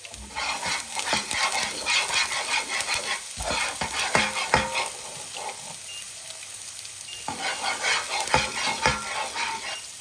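Chopped onions and garlic frying and sizzling in a pan as they are stirred, with scrapes and knocks of the stirring utensil against the pan. The crackle drops back for a couple of seconds about halfway through.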